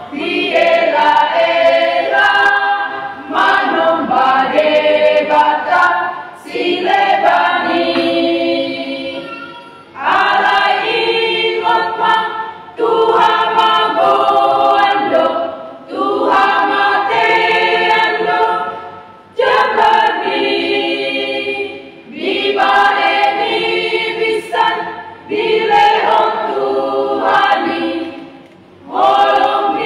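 Women's church choir singing a Batak-language hymn in parts, unaccompanied, in phrases of about three seconds with short breaks for breath between them.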